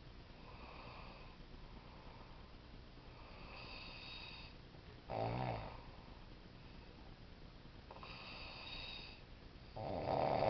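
A man snoring in his sleep: two loud snores about five seconds apart, the second near the end, with quieter breaths in between.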